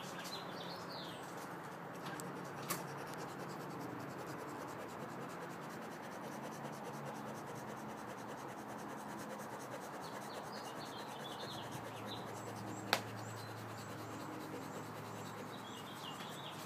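Quiet background with small birds chirping faintly in short clusters now and then, over soft rubbing of hands on a towel. Two sharp clicks, one near the start and one toward the end, are the loudest moments.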